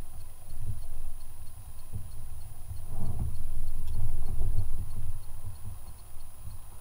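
Low, uneven rumbling with dull bumps from the kayak and its mounted camera as the angler shifts about, loudest from about three to five seconds in.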